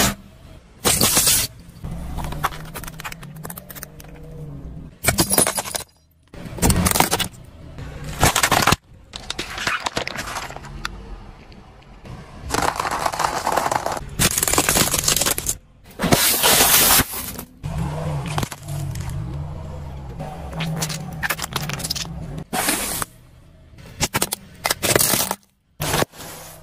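A car tyre rolling slowly over a run of objects and crushing them: hard plastic toys and tubes cracking and crunching in loud sudden bursts, many times over. Between the crushes the car's engine runs low and steady.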